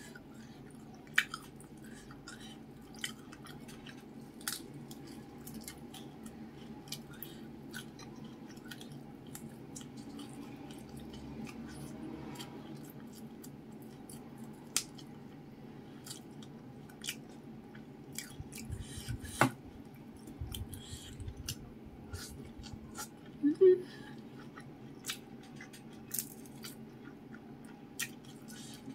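Close-up eating sounds of crispy fried fish and rice eaten by hand: chewing with many scattered sharp crunches and mouth clicks, and a few louder ones later on, over a steady low hum.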